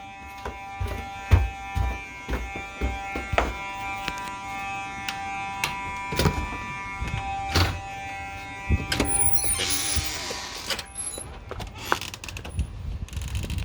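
A fire alarm horn sounding a steady buzzing tone, with knocks and footsteps as someone walks. About nine seconds in the tone cuts off and a door opens with a rush of noise and a few short high squeaks.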